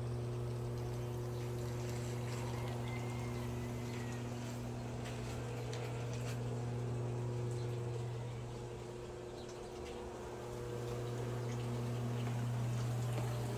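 A steady low mechanical hum with a few overtones above it, growing a little fainter for a couple of seconds about eight seconds in. A few faint taps sound over it.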